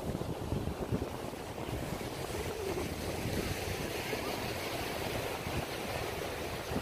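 Sea surf washing onto a sandy beach, a steady hiss, with wind rumbling on the microphone.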